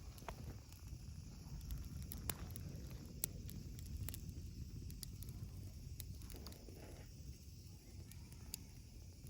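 Wood bonfire crackling: scattered sharp pops and snaps at irregular intervals over a steady low rumble.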